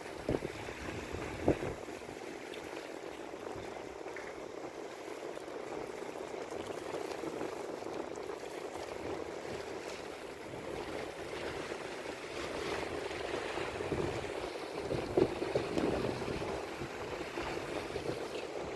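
Steady outdoor background noise, a haze like wind, water or distant traffic, broken by a few short sharp knocks: two near the start and one about fifteen seconds in.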